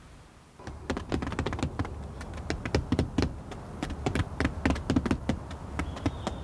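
Roofers' hammers tapping rapidly and unevenly, nailing down hinoki bark roofing; the tapping starts about half a second in.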